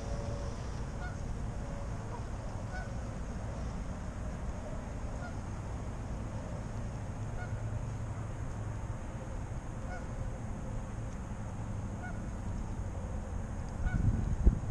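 Geese honking faintly, short calls every second or two, over a steady low rumble that grows louder near the end.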